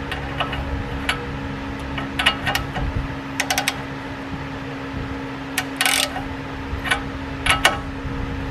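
Ratchet and socket clicking in short bursts as they turn the castle nut on an outer tie rod end, bringing the nut's slot in line with the cotter-pin hole. A steady hum runs underneath.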